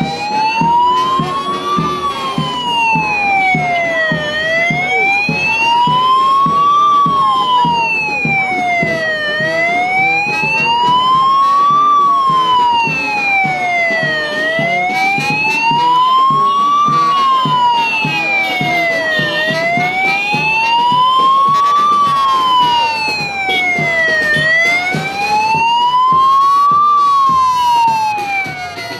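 Police motorcycle siren wailing loudly, gliding slowly up and down in an even rise and fall, one cycle about every five seconds.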